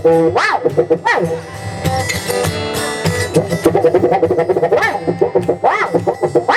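Live band playing an instrumental passage between verses, led by guitar in a steady plucked rhythm, with several quick swoops up and down in pitch laid over it.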